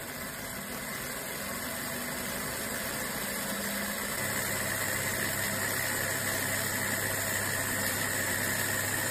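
Multi-cylinder model Stirling engine running with its propeller spinning: a steady mechanical whir and hiss that grows gradually louder, with a low hum joining in about four seconds in.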